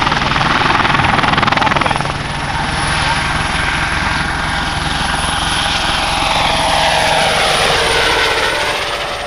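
Airbus Helicopters EC120B Colibri at take-off power, its Turbomeca Arrius 2F turboshaft whining over the beat of the main rotor as it climbs away past the camera. The whining tones fall in pitch as it goes by, and the sound fades in the last second.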